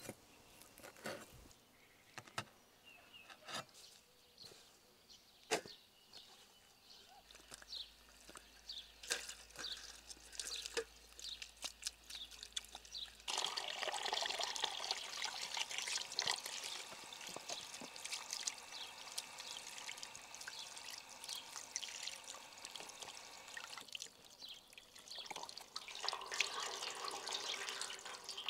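A few scattered knocks of a cleaver on a wooden cutting board, then from about 13 seconds in, water from a garden hose running steadily over a rack of raw beef ribs and splashing into a metal tray for about ten seconds. It stops, then water runs and drips again briefly near the end.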